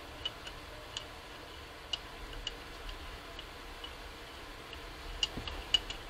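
Hand brayer rolling paint across a gel printing plate, with light clicks at irregular intervals over a faint steady hum.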